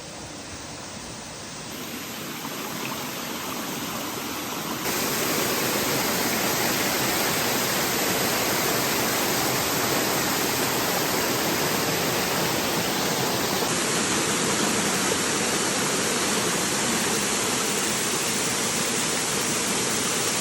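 Waterfall rushing steadily, a dense roar of falling water that gets louder in abrupt steps about two and five seconds in.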